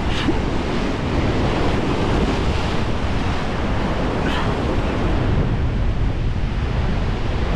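Heavy surf breaking and washing over shore rocks in a steady roar, with wind buffeting the microphone.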